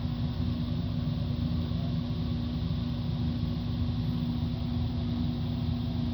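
Rheem Performance Platinum hybrid water heater's heat pump running: a steady hum from its compressor and fan, pretty quiet, pumping out cold air at the exhaust.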